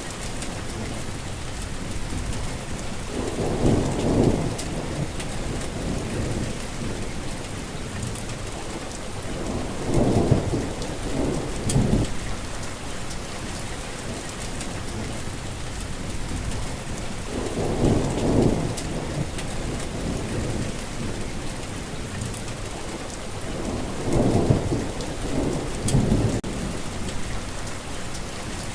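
Heavy rain falling steadily, with four low rumbles of thunder about every seven seconds; the second and fourth rumbles each swell twice.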